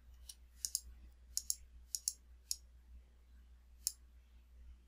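Computer mouse button clicks: about nine sharp clicks in the first four seconds, several in quick pairs, over a faint steady low hum.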